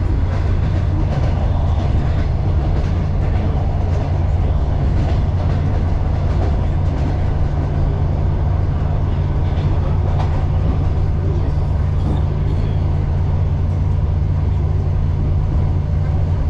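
Suburban electric train running steadily, heard from inside the carriage: a constant low rumble with faint scattered clicks from the rails.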